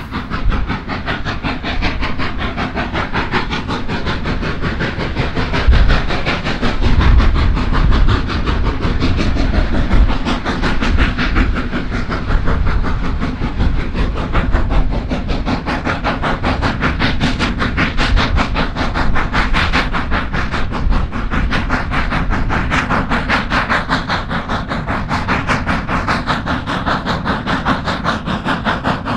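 Steam locomotive hauling a train, its exhaust beating in a quick, steady rhythm over steam hiss and a low rumble, swelling louder a few seconds in.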